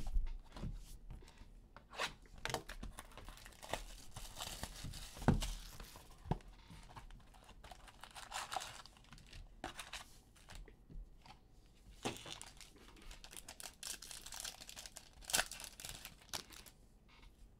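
Panini Contenders football card box being opened and its foil card packs torn open: cardboard lid and flaps handled, foil wrappers ripped and crinkled. Scattered sharp clicks and knocks, the loudest about five seconds in.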